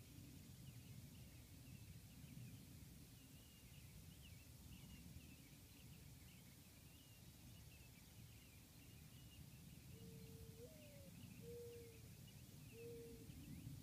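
Faint dawn birdsong: many small birds chirping steadily at a distance over a low background rumble. From about ten seconds in, a few low, even cooing notes come about a second apart, one of them stepping up in pitch.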